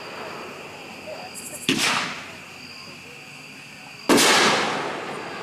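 Boomwow 'One of Us Is Lying' consumer firework shots going off: two loud bangs about two and a half seconds apart, each echoing away over about a second.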